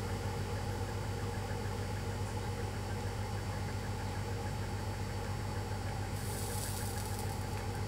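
Steady low electrical hum with a buzz of evenly spaced overtones, unchanging throughout. A brief soft high hiss comes about six seconds in.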